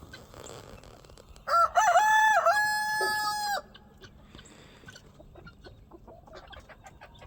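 A rooster crowing once, starting about a second and a half in, in a few short notes and then a long held final note. Faint clucking from the flock goes on around it.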